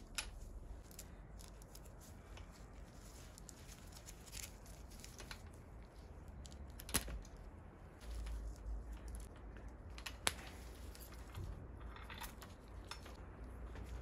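Faint clinking and rattling of a bicycle chain's steel links being handled and fed onto the bike, with a few sharp metallic clicks, the loudest about seven and ten seconds in.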